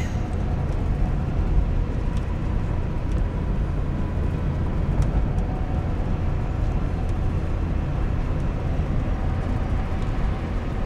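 Steady road and engine noise heard from inside the cabin of a moving vehicle: an even low rumble that holds at one level.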